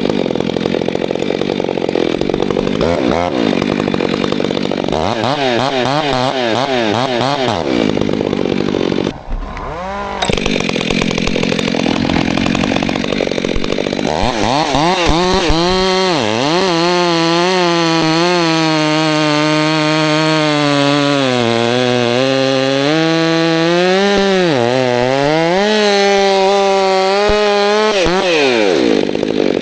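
Chainsaw engine running at high revs, its pitch dipping and recovering again and again as it works. It drops off briefly about nine seconds in.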